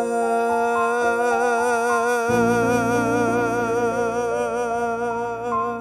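Song backing music with a singer holding one long note with a wide vibrato, over stepwise rising accompaniment notes; a deep bass note comes in about two seconds in.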